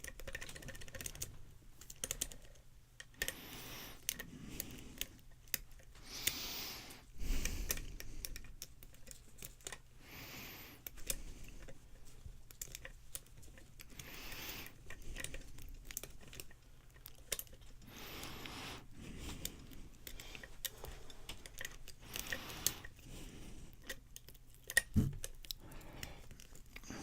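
Lock pick and tension wrench working the pin tumblers of a Cisa five-pin padlock: faint, irregular small clicks and scrapes with handling rustle, and a couple of louder knocks.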